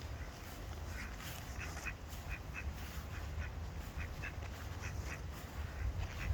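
Ducks quacking: many short quacks in quick runs of two or three, repeating throughout, over a steady low rumble.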